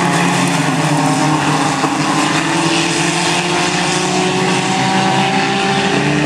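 Engines of several small hatchback race cars running hard around a dirt track, their overlapping drones steady with pitches drifting slightly.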